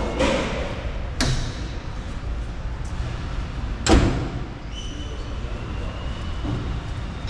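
Two sharp bangs, about a second in and about four seconds in, the second the louder, over a steady low rumble. A thin steady high tone starts near five seconds in.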